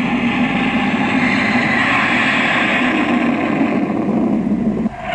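Jet engine sound played by the model carrier's electronic sound module, a steady running noise, dipping briefly near the end.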